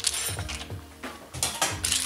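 Clam shells clinking against each other and the metal wok as they are stirred with a wooden spatula: a few sharp clinks, over background music.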